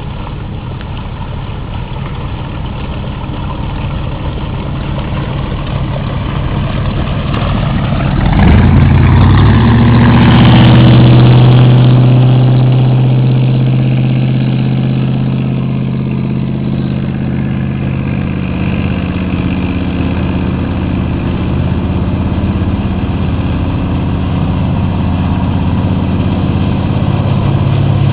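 Curtis 20 Riviera wooden runabout's engine running at speed as the boat passes by, growing suddenly louder about a third of the way in and then easing off. It builds again near the end as the boat comes back.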